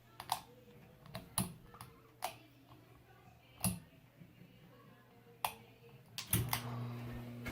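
Several sharp, irregular clicks, then about six and a half seconds in a Hampton Bay San Marino ceiling fan's motor switches on with a steady electrical hum and a rush of noise.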